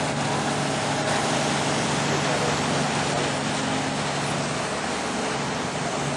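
Engine of an old truck running steadily as it rolls slowly past close by, over a steady rush of street noise, easing off a little near the end.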